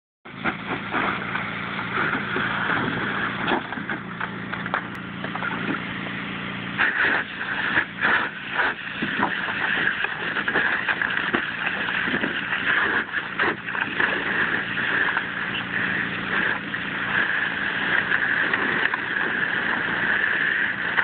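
Garden hose jet spraying into a plastic kiddie pool while a pit bull splashes through the water chasing the stream. The rushing spray is steady, with bursts of heavier splashing about a third of the way in and again a little past the middle.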